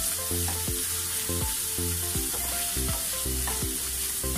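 Onion, garlic, ginger and spring onion sizzling as they sauté in hot oil in a frying pan, stirred with a wooden spatula, over background music.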